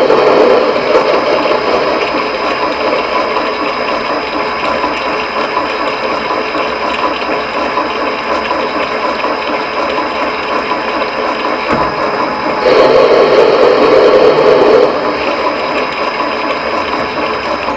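Small, low-powered metal lathe running under power, its motor and gear train whirring steadily while it single-point cuts a thread. The sound gets louder and harsher for about two seconds, around thirteen seconds in.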